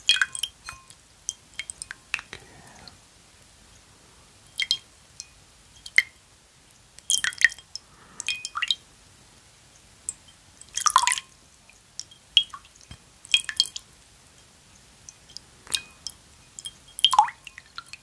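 Close-miked ASMR wet sounds: scattered short clicks, smacks and squishes, coming in small clusters with quiet gaps between them.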